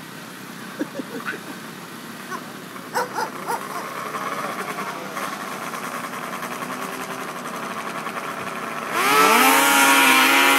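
Racing snowmobile engines revving at a distant drag-race start line, slowly growing louder. About nine seconds in they launch, and the sound jumps to a loud engine note rising in pitch as the sleds accelerate down the ice.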